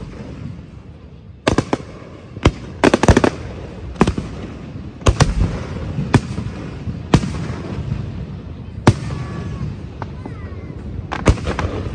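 Aerial fireworks shells bursting overhead: a string of sharp bangs roughly a second apart, with a rapid cluster of cracks about three seconds in, over a steady low rumble.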